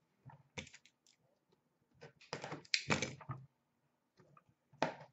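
Cardboard and plastic packaging of a trading-card box being handled and opened: a series of short clicks and rustles, densest and loudest about halfway through.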